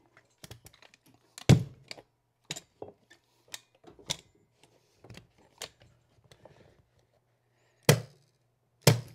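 A carpet knee kicker bumped to stretch a stair runner tight on the landing: a few sharp thumps, the loudest about a second and a half in and two more near the end, with lighter knocks and handling of the carpet between.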